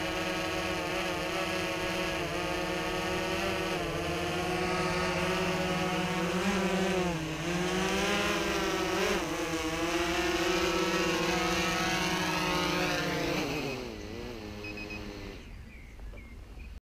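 DJI Phantom 3 quadcopter's propellers whirring as it hovers low and sets down, the pitch wavering as it manoeuvres. About 13 seconds in the motors spin down, their whine sliding steeply lower and fading out once it has landed.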